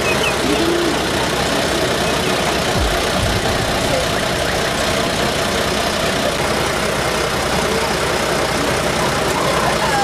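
A vehicle engine running steadily, with faint voices over it.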